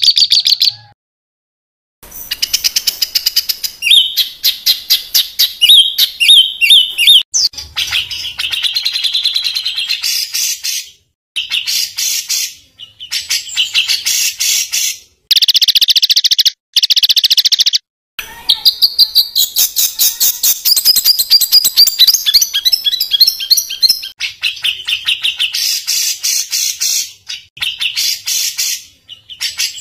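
A songbird singing harsh, rapid-fire phrases of fast repeated high notes and trills, broken by several abrupt short silences.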